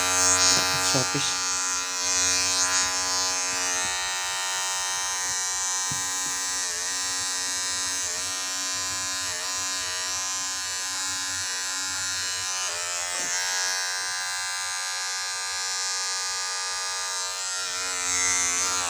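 Electric hair clipper buzzing steadily while cutting hair, somewhat loud, its pitch dipping briefly a few times.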